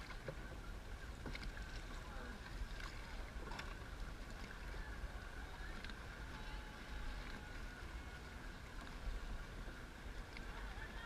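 Dragon boat on the water: steady wind rumble on the microphone and water noise, with scattered knocks and splashes at irregular intervals.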